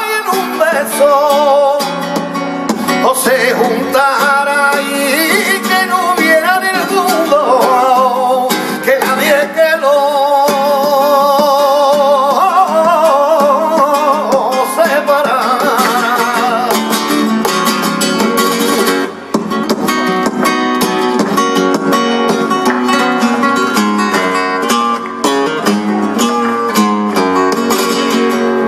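Flamenco cante por colombianas: a male singer's voice in long, wavering melismatic phrases over a flamenco guitar. About two-thirds of the way through the singing stops and the guitar plays on alone with rapid, crisp strumming.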